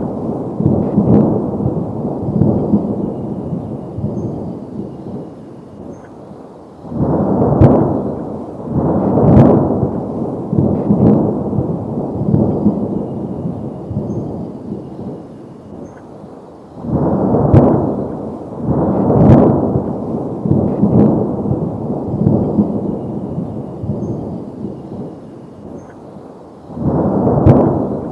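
Looped background track of deep, thunder-like booms and rumbles with sharp hits, repeating the same pattern about every ten seconds.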